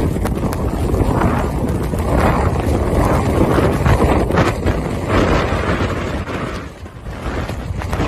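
Blizzard wind gusting hard against a phone's microphone: a loud rushing and buffeting noise that swells and eases in surges, easing briefly about a second before the end.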